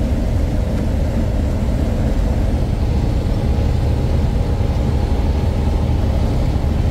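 Steady low rumble of a semi truck's diesel engine and road noise, heard inside the moving cab.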